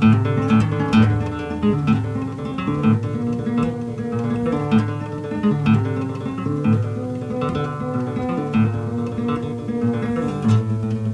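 Solo classical guitar (nylon-string violão) playing, plucked notes in a flowing melody over a bass line.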